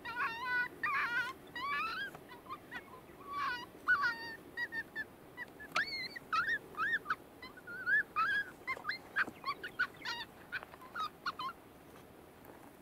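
Coyote vocals blown on a mouth diaphragm call: a quick string of high yips and whimpering whines that slide up and down in pitch, stopping near the end.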